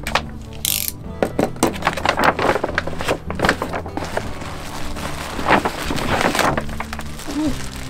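Paper shopping bag and the plastic bag inside it rustling and crinkling with many short crackles as they are handled and opened, over background music.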